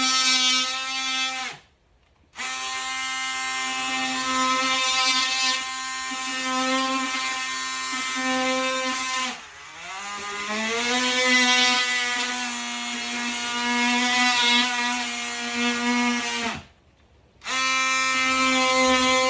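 Oscillating multi-tool cutting an outlet-box hole in a wall: a steady high-pitched buzz, switched off briefly twice and restarted, its pitch sagging for a moment about halfway as the blade bites under load.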